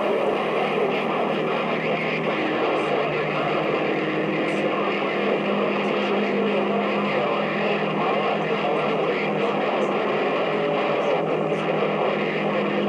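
Steady radio static hissing from an HR2510 transceiver's speaker, tuned to 27.085 MHz (CB channel 11), with a few faint steady whistles in the noise.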